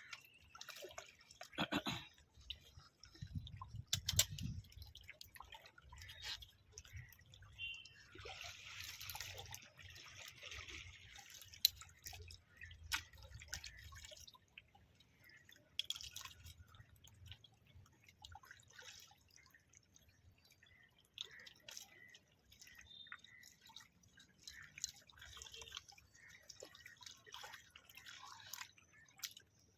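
Faint small splashes and drips of water, with scattered clicks and a sharper knock about twelve seconds in. A low rumble runs under the first half.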